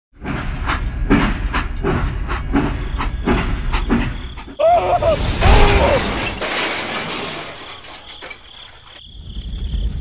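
Train clattering along the rails in a steady rhythm of about three clacks a second, then, about four and a half seconds in, a sudden derailment crash with a screech and hiss that fades away. Near the end a low rumble starts.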